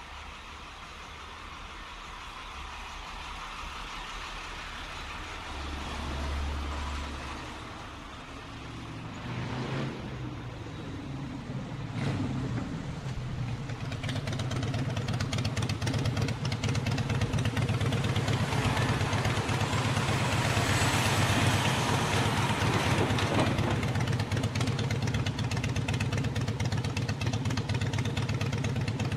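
Motorcycle engine running amid traffic noise: at first a general haze of traffic, then a rising engine sound about ten seconds in. From about halfway the motorcycle engine idles steadily and louder.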